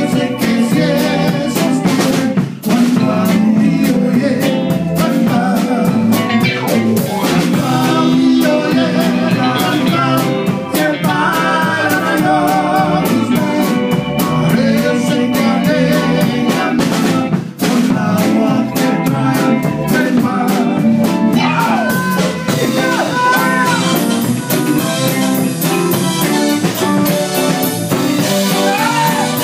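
A small band playing live: two electric guitars and a drum kit, with a man singing. The song pauses briefly twice, once near the start and once past the middle.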